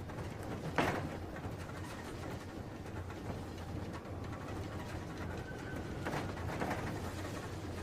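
Train noise: a steady low rumble, with a sharp clatter about a second in and a longer rattling noise near the end.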